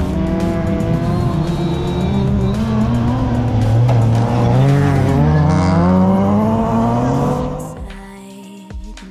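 Autocross race car engines revving hard on a dirt track, their pitch rising and falling with throttle and gear changes. About eight seconds in, the engines give way to background music.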